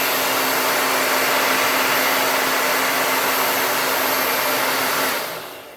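Low-EMF hair dryer blowing with a steady rush of air and a steady hum. It is switched off about five seconds in and winds down.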